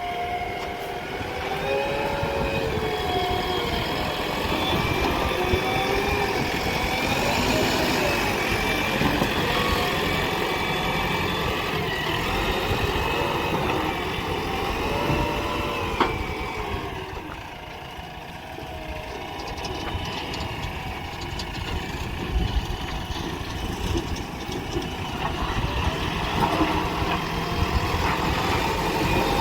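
Diesel engine of a JCB 3DX backhoe loader running under load, its pitch rising and falling as it works the hydraulics to dig and load mud. There is a single knock about sixteen seconds in, and the engine eases off briefly a little after.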